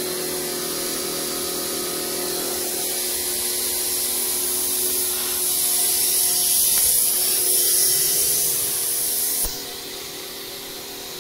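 Pressure washer jet spraying water onto a window air conditioner's plastic blower wheel: a steady hiss over a steady hum. The hiss stops about a second and a half before the end, and the hum goes on.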